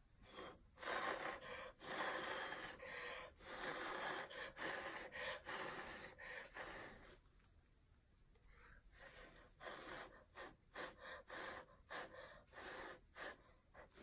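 A person blowing by mouth across wet acrylic pour paint to push it and open up the colours beneath. There is a run of long breathy blows, a short pause, then quicker short puffs in the last few seconds.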